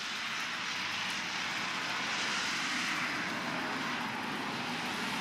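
A steady rushing noise with a faint low hum, swelling a little around the middle and easing off again.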